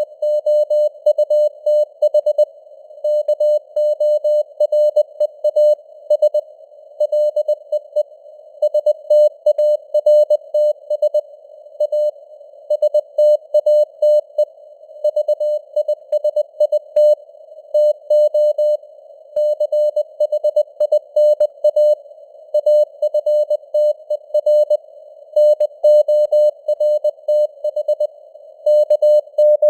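Morse code (CW) sent at 20 words per minute: a single steady beep keyed on and off in short and long elements, sitting in a narrow band of simulated radio-receiver hiss.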